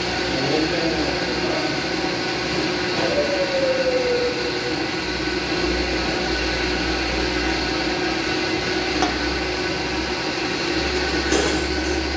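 Countertop blender running steadily under load.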